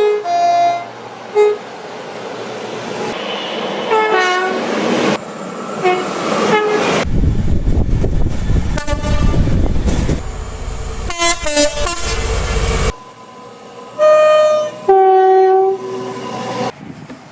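A series of train horn blasts from different clips cut one after another, some sounding two notes, high then low. In the middle, a loud low rumble of a train passing close, with more horn notes over it.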